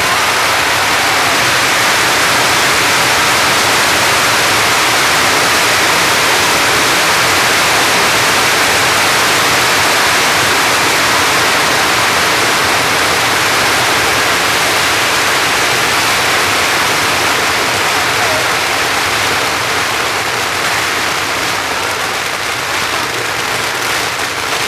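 A long string of firecrackers going off in a dense, continuous crackle that blurs into one loud hiss, easing slightly near the end.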